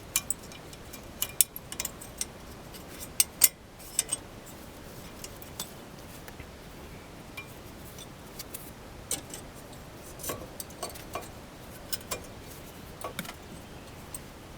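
Scattered sharp metallic clicks and clinks of brake hardware being worked by hand: a steel brake-pad retaining plate is being bent and a front brake pad fitted into the caliper bracket. The clicks come thickest in the first few seconds, thin out, then bunch again past the middle.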